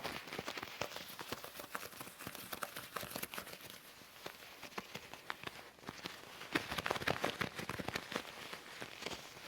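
Leather gloves rubbing and crinkling, with many quick small taps and scratches. There is a denser flurry about two-thirds of the way through.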